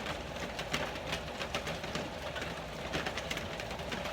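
Steady rain hiss with scattered light clicks and taps.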